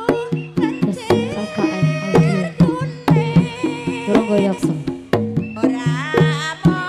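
Jaranan gamelan accompaniment: hand drums beat a busy rhythm under sustained gong-like tones, with a high wavering melody line on top.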